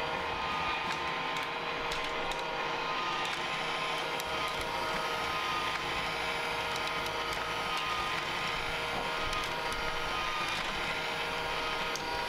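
Battery-powered motor and plastic gearing of a Hot Wheels Super Ultimate Garage running steadily, turning the orange spiral car elevator. It makes a steady whir with several held tones and faint ticking.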